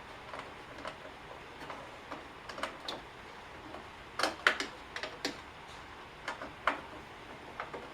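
Scattered small clicks and ticks of a small screwdriver working a hidden screw loose inside a Keurig coffee maker's plastic base, with a few louder clicks in the middle.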